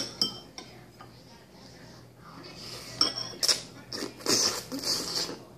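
A metal fork clinks a few times against a ceramic plate, then comes a longer, louder run of close-up eating noises as a piece of ravioli is taken into the mouth and chewed.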